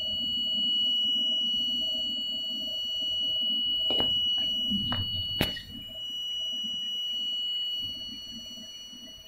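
Steady high-pitched electronic tone, like a buzzer, from the HB3000+ vibratory stress relief control unit, held unbroken over a low rumble. A few sharp clicks and knocks come in the middle, the sharpest about five and a half seconds in.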